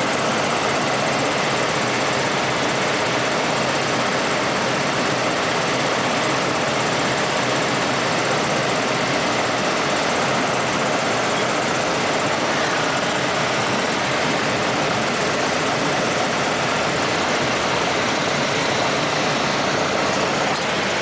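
Steady engine, propeller and wind noise inside the cabin of a Piper Cherokee light aircraft on final approach to land.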